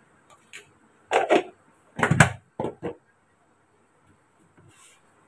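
A few short knocks and clatters, the loudest about two seconds in, as a spice jar and its lid are handled and set back down on the kitchen counter.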